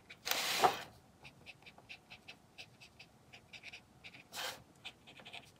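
Acrylic brush pen tip dabbing on black cardboard: a run of soft, quick, uneven ticks. Two short breaths sound over it, the louder about half a second in and a weaker one after about four seconds.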